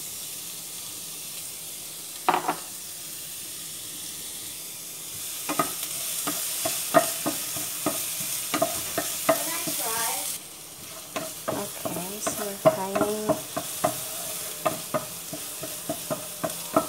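Chopped onion and garlic sizzling in hot olive oil in a nonstick frying pan. A wooden spatula stirs them, scraping and tapping on the pan from about five seconds in. There is one knock about two seconds in, and the sizzle dies down a little about ten seconds in.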